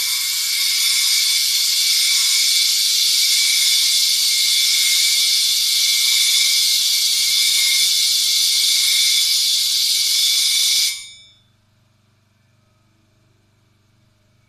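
A clipper blade being ground on the spinning horizontal abrasive disc of a blade sharpener: a loud, steady grinding hiss with a high ringing tone in it. It stops abruptly about eleven seconds in when the blade is lifted off, leaving only a faint low hum.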